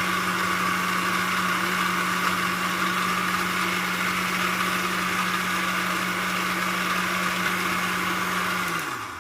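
Electric blender running steadily at speed, blending raisins, honey, mint and water into a juice; near the end the motor is switched off and spins down, its hum falling away.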